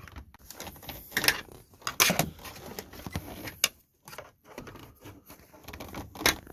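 Hands working at plastic dash parts and the headlight switch's wiring connector: rustling with a handful of sharp plastic clicks and knocks while feeling for the release tab.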